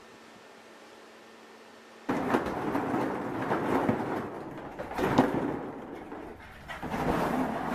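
Dogs playing around a plastic ball pit on a tiled floor: a loud, rough clatter and scuffle that starts suddenly about two seconds in, after a faint hiss.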